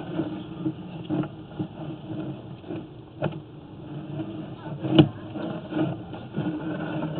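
Sewer inspection camera being fed along a 6-inch clay sewer line: a steady low hum with scattered knocks and clicks as the push cable and camera head travel down the pipe. The loudest is a single sharp knock about five seconds in.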